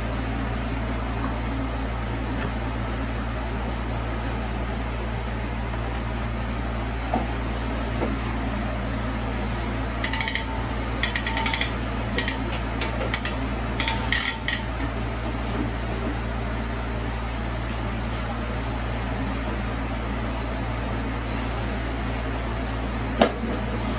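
Steady low mechanical hum, with a run of light, sharp clicks and clatters between about ten and fifteen seconds in as tools are handled.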